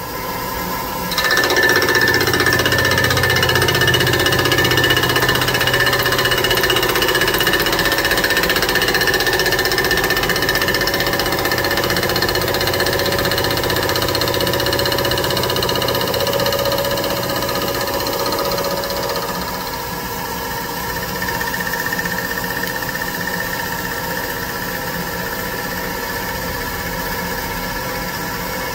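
Suburban Tool fly cutter with an 11-inch bar on a CNC mill spindle, cutting the underside of a cast aluminum plate in a 40-thousandths-deep undercut. The cut starts about a second in as a loud, steady machining sound with ringing tones that slowly shift in pitch, and it eases a little about two-thirds of the way through.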